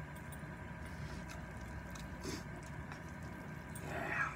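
A person chewing spicy noodles with wet mouth sounds and small clicks, with a louder, brief mouth sound near the end as a big chopstick-load of noodles comes up to the mouth.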